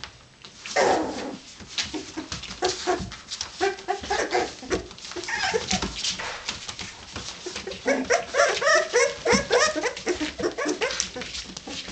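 Three-week-old Irish terrier puppies whimpering and squealing: a longer whine about a second in, then clusters of short, high yips and squeaks.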